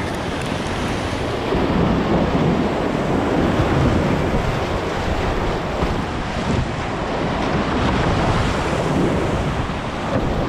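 Whitewater rapid rushing and splashing close around a kayak as it runs the drop, louder in the middle, with spray hitting the boat's camera microphone.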